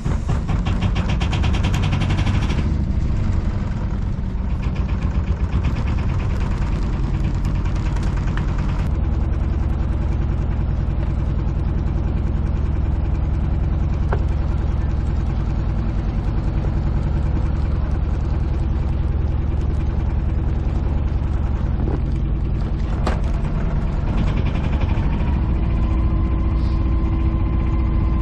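Sailboat's auxiliary engine running steadily with a fast, even pulse as the boat motors away from the dock. About nine seconds in, the higher rattle drops away and the lower running note carries on.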